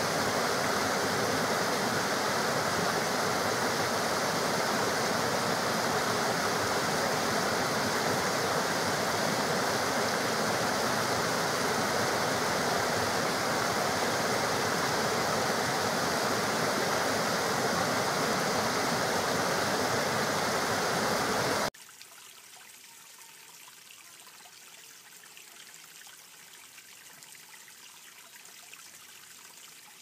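Water rushing steadily over rocks in a small cascade into a pool. About two-thirds of the way through it cuts off abruptly to a much quieter trickle of a thin stream spilling over a low rock ledge.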